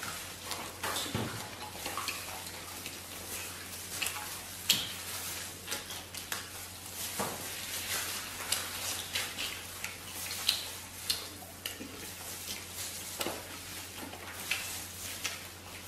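Two people eating crispy-skinned roast lamb close to the microphone: chewing, lip-smacking and tearing meat off the bone, heard as irregular wet clicks and crackles over a steady low hum.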